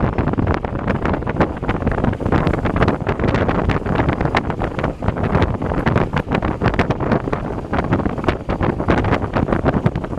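Wind buffeting the microphone as it rides aboard a moving amusement-park airplane ride: a loud, continuous rushing noise broken by rapid crackling gusts.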